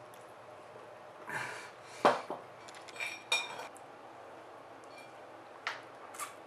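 Metal cutlery clinking against dishes: several separate clinks and knocks, some with a short metallic ring.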